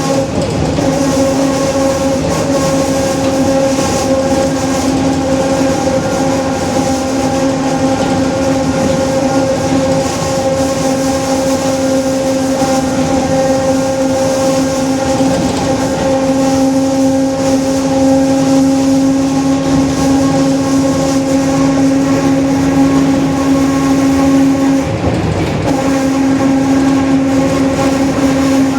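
Differential of a Mercedes-Benz OF-1721 bus howling very loudly while driving: a steady droning tone with overtones over road and engine rumble. The tone weakens and comes back, and breaks off briefly about 25 seconds in.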